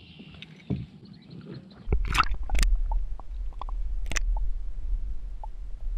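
Water splashing and gurgling as a largemouth bass is lowered into the lake for release, heard through a camera dipped underwater. About two seconds in come a few sharp splashes, then a muffled deep rumble with scattered clicks.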